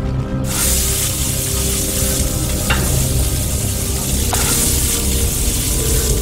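Steady, loud sizzle of food frying on a hot griddle, starting about half a second in, over a low steady hum, with a few faint ticks.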